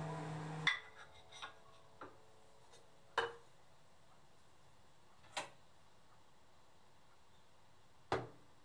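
Kitchenware being handled on a counter: a handful of short, sharp knocks and clinks spaced a second or more apart, the last as the moka pot is lifted, with quiet room tone between.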